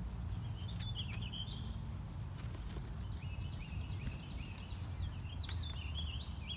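Birds chirping in short, warbling phrases, one burst about a second in and a longer run through the second half, over a steady low rumble.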